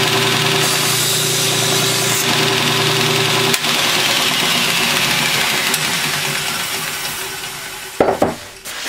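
Belt grinder running with a felt polishing belt. It is switched off about three and a half seconds in, and its whine falls away as it coasts to a stop. A couple of sharp knocks come near the end.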